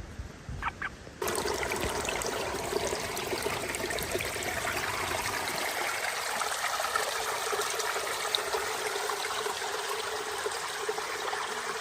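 Steady running water, an even trickling rush that starts abruptly about a second in.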